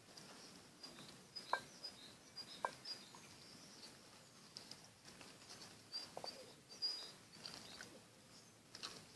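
Faint outdoor birdsong: small birds chirping and twittering again and again, with a few brief sharp ticks, the loudest about a second and a half in.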